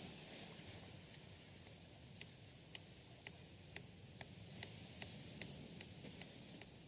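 Near silence: a faint low hiss, with faint, regular ticks about two a second starting a couple of seconds in.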